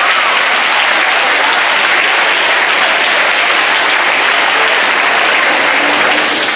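An audience in a large hall applauding steadily, a dense, even clapping that begins to fade near the end.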